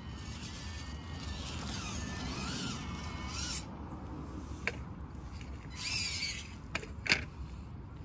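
Axial SCX24 1/24-scale micro crawler's small electric motor and gears whining, the pitch rising and falling with the throttle as it climbs over rocks, then a few sharp clicks and knocks in the second half as it bumps over the rocks.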